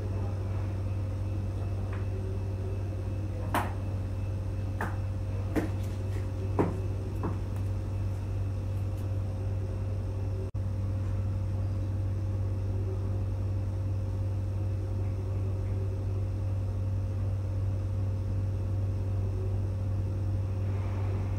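A steady low hum with a faint higher tone above it, and a few light clicks and taps in the first third.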